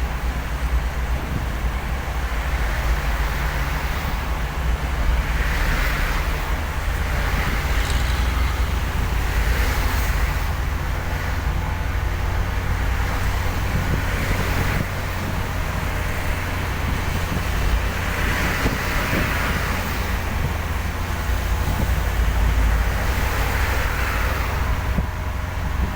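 Vehicle driving on a rain-wet road: a steady low rumble of engine and road noise, with a tyre hiss that swells and fades every few seconds.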